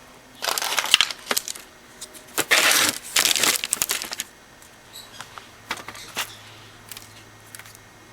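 Hardened birdseed treats being handled on wax paper: rustling and crunching in two longer bursts, then a few scattered light clicks.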